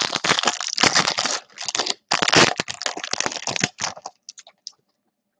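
Foil wrapper of a Topps Chrome baseball card pack being torn open and crinkled by hand. The dense crackling lasts about four seconds, then thins to a few ticks and stops.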